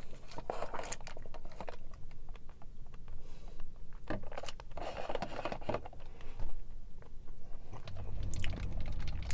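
Close-miked chewing of chewy boba tapioca pearls: wet mouth clicks and smacks, irregular and unhurried.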